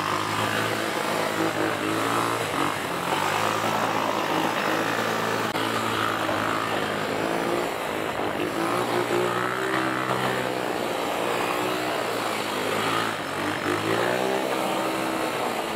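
Motorcycle engine running under throttle, its pitch rising and falling as the revs change, dipping and then climbing again near the end.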